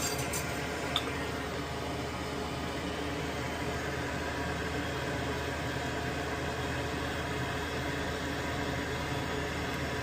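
Steady whir and hiss of a running fan, with a few light clicks at the start and one sharp tick about a second in.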